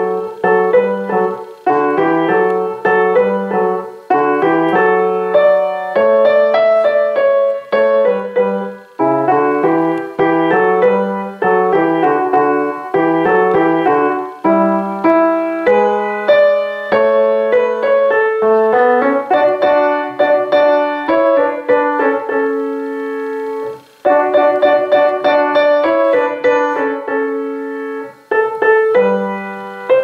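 Kawai grand piano played with both hands: a simple children's-song melody over a lower bass accompaniment, in short phrases with brief breaks between them and one held chord.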